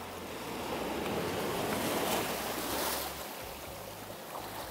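Small waves breaking and washing up the shallow beach: the surf swells about a second in and eases off toward the end, with wind rumbling on the microphone underneath.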